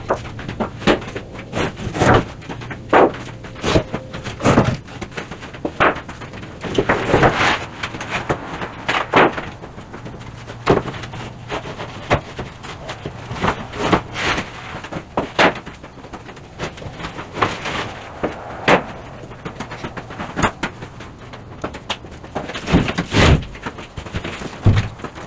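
Irregular knocks and clatter of wooden boards being handled and set down, sharp hits every second or so.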